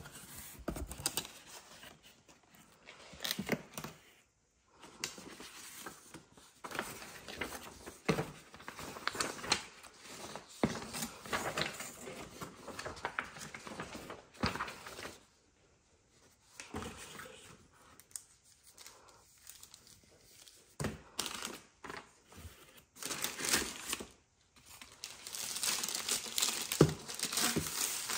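Paper and cardboard packaging being handled: sheets of paper and white wrap rustling and crinkling, with small knocks of cardboard, in irregular spells broken by short pauses. The rustling grows louder and denser near the end as the vacuum's wand is drawn out of its wrapping.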